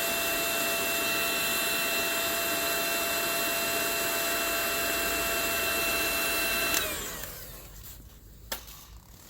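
A small electric motor, like a power tool's, running steadily with a high whine, then switched off about seven seconds in and spinning down. A single sharp click follows near the end.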